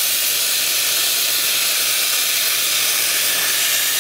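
Can of compressed-air dust remover spraying in one continuous, steady hiss, chilling a bike lock to freeze it so it can be shattered.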